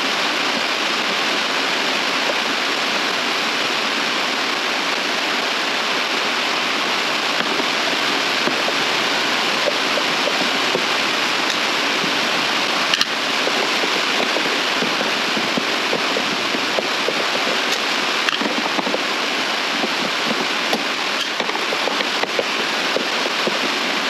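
A steady, loud rushing noise with no pitch, under a few light clicks and taps of hands working on a plastic HVAC heater box, one clearer click about halfway through.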